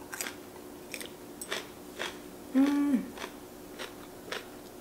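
Close-up chewing of crunchy raw Korean green chili pepper: irregular crisp crunches and wet mouth clicks. A short hummed 'mm' comes about two and a half seconds in.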